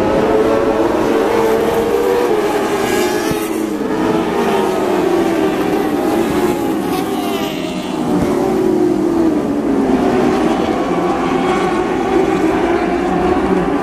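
A field of motorcycle-engined dwarf race cars running on a dirt oval, several high-revving engines heard at once, their pitch rising and falling as they lap. The sound dips briefly just past the middle, then builds again.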